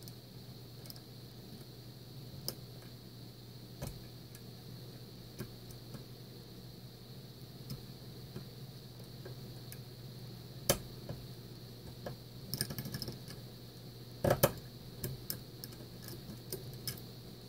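Scattered small metallic clicks and ticks of a pick working the serrated pins of a Mul-T-Lock Interactive dimple cylinder held under tension in a vise, with the loudest clicks about eleven and fourteen seconds in. A steady low hum runs underneath.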